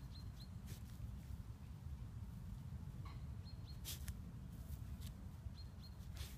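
Small bird chirping in short high notes, twice at the start, three times around the middle and twice near the end. Under them run a low steady rumble and a few brief rustles, as a dog noses through dry grass.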